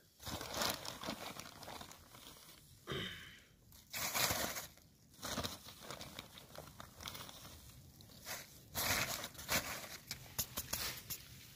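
Plastic bag crinkling and rustling in short irregular bursts as hands open it and work the powdery bran bait inside.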